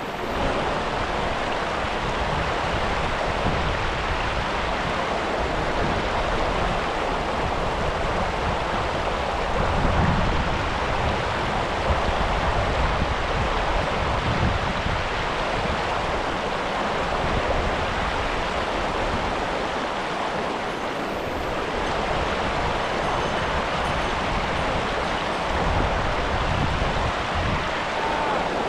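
Steady rush of a mountain river's flowing water.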